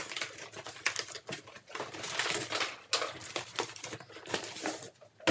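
Cardboard boxes being handled: flaps and sides scraping and rustling against each other, with a string of sharp clicks and knocks as a box is lifted out of a larger carton.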